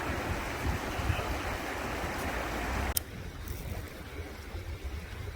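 Rushing river water with wind buffeting the microphone. A sharp click about three seconds in, after which the water sound is quieter.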